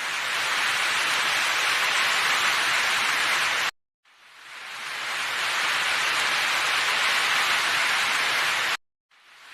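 A steady, even hiss with no clear tone, in stretches of about four seconds. Each stretch fades in and cuts off suddenly, with two brief silences between them.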